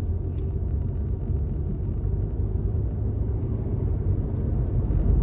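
Steady low rumble of engine and road noise from inside a moving car's cabin.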